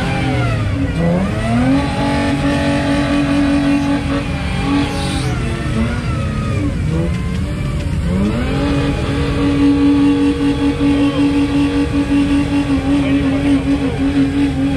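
Off-road 4x4's engine revving hard under load: the note climbs and holds at high revs, drops away around the middle, then climbs again about eight seconds in and holds high with a pulsing, wavering loudness.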